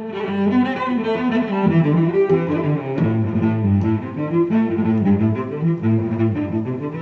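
Intro music led by low bowed strings, cello-like, playing a moving melody.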